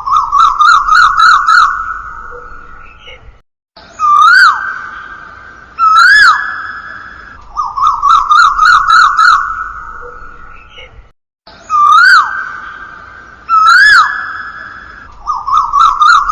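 A recorded bird call looped as a ringtone. Each cycle has two single notes that sweep up and then drop, followed by a quick trill of about seven notes. The cycle repeats about every eight seconds, with a brief cut between loops.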